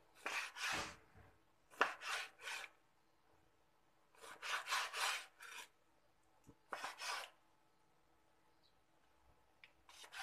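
Cleaver slicing through raw chicken breast onto a plastic cutting board: short rasping strokes in runs of two to four, with pauses between.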